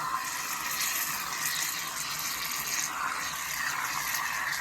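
Aerosol shaving cream can dispensing foam with a steady hiss.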